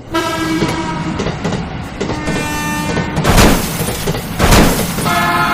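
Remote-control toy train running, its built-in sound unit playing steady electronic horn and engine tones over the noise of the train, with two louder bursts about three and four and a half seconds in.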